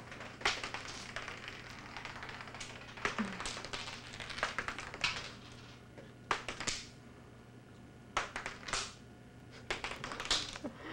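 Small objects clicking and skittering across a hard, shiny floor as a cat chases and swats at them. About ten separate taps and short scuffs come at irregular intervals, some a second or more apart, over a faint steady hum.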